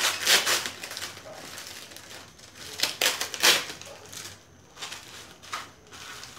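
Clear plastic bags crinkling as they are handled, in several short bursts, loudest right at the start and about three seconds in.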